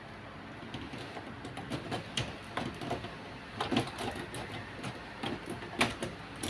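Irregular plastic clicks and knocks of a toner cartridge being lowered and pressed into its slot in an HP Color LaserJet Pro MFP M176n laser printer. The loudest knock comes near the end.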